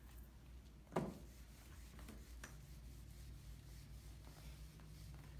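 Whiteboard eraser wiping across a dry-erase whiteboard, faint, after a single knock about a second in.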